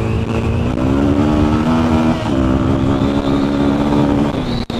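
2003 Suzuki DR-Z400E's single-cylinder four-stroke engine under hard throttle on the move. The pitch climbs, drops briefly about two seconds in as with a gear change, then climbs again and holds high. The sound breaks for a split second near the end.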